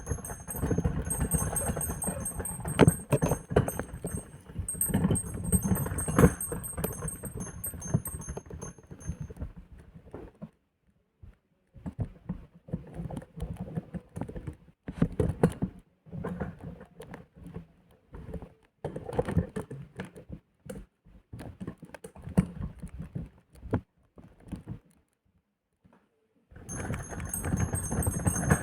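Miniature metal bell-shaped pencil sharpeners swung over like church bells, clattering and knocking with small high tinkling rings. The ringing stops about nine seconds in, leaving irregular clicks and knocks with a couple of silent pauses, and starts again about two seconds before the end.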